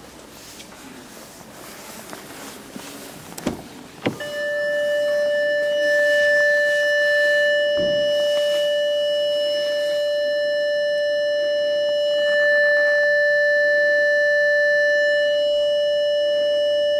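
Two sharp clicks about three and a half and four seconds in, then a continuous steady electronic warning tone from the Audi A6's dashboard, the warning that the parking lights are switched on.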